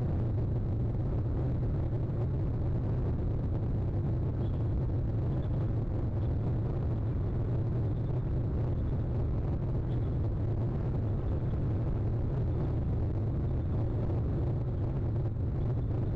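Steady low rumble with a constant hiss above it, unchanging throughout.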